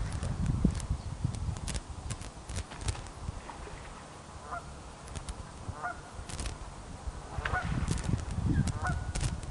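Geese honking, a series of short calls every second or two, over a gusty low rumble of wind on the microphone that grows louder near the end. Scattered sharp ticks are heard as well.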